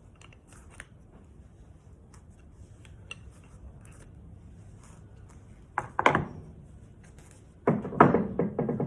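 Pressure-washer rotary nozzle parts being handled: a few faint clicks, then a sharp clatter about six seconds in, and a louder run of knocks near the end that rings briefly afterwards.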